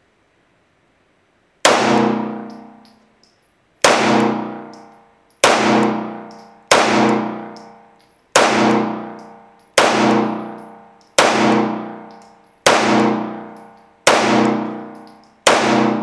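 Ten shots from a CZ-75B 9mm pistol firing 115-grain full metal jacket, in slow fire about one every one and a half seconds and starting about two seconds in, each ringing out with a long echo.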